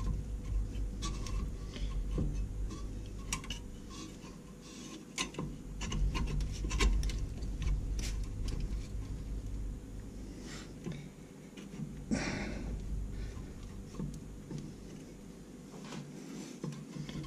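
A small socket wrench and metal brake parts clicking and tapping irregularly as a rear disc brake caliper bolt is worked by hand, with a short scraping rub about twelve seconds in.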